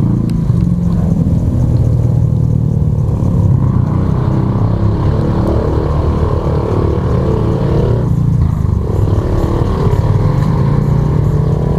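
Road traffic: motor vehicle engines running steadily, with engine tones that shift in pitch.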